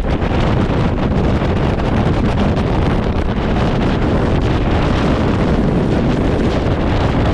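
Strong mountain wind, over 35 m/s, blowing hard across the microphone: a loud, steady rumble of wind noise.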